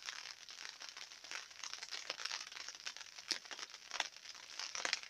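Light rain falling on the garden's leaves and pots: a steady crackly patter with occasional sharper drop ticks.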